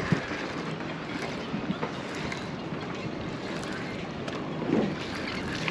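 Steady wind noise on the microphone over ocean surf, with a sharp click just after the start.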